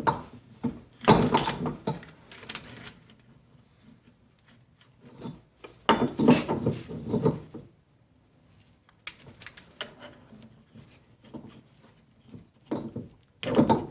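Pliers and metal parts knocking and scraping in short, irregular bursts as a part is squeezed into place.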